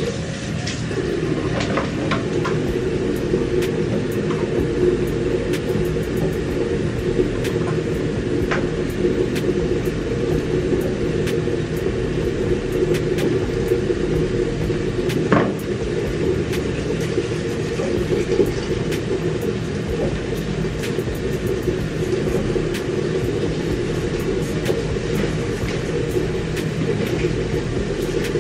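A steady low hum with a rumble settles in about a second in and runs on evenly, with a few faint small clicks and taps of objects being handled.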